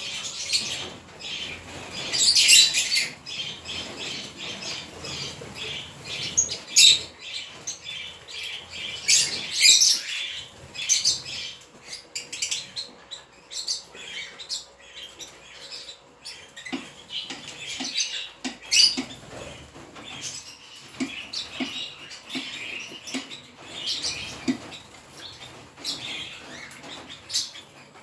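A flock of lovebirds chattering: a dense stream of overlapping shrill chirps and squeaks, with louder bursts here and there.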